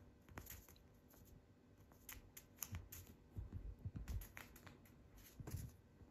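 Faint scattered taps, rustles and soft thumps of a kitten playing on a bed blanket, batting at a small plastic treat stick and scrambling close to the phone. The thumps come in a cluster about halfway through and once more near the end.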